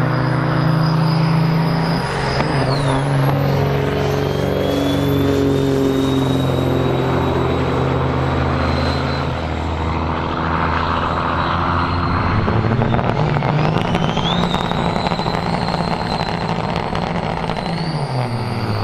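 Loaded turbo-diesel semi truck pulling hard under full throttle, with a high turbo whistle over the engine. The whistle drops away about two and a half seconds in, as at a gear change, and climbs again from about fourteen seconds.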